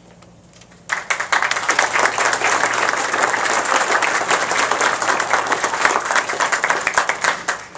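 Audience applauding: dense clapping starts suddenly about a second in, holds steady, and dies away near the end.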